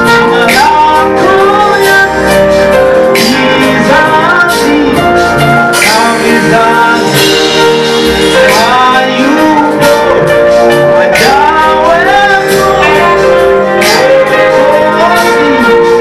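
Live church praise song: a man sings lead into a microphone over a steady instrumental accompaniment with held keyboard-like chords.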